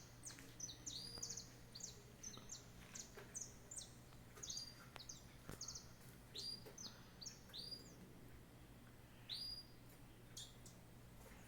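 Small wild birds chirping faintly, many short high chirps in quick succession, over a faint steady low hum.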